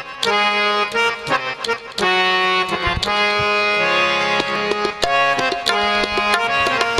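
Qawwali instrumental opening: a harmonium playing held reed chords that change every second or two, with quick hand-drum strokes over them.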